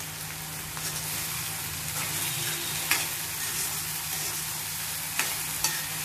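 Chopped cluster beans and onions sizzling in oil in a kadai, stirred with a steel spoon; the stirring picks up about a second in, with a few sharp knocks of the spoon against the pan.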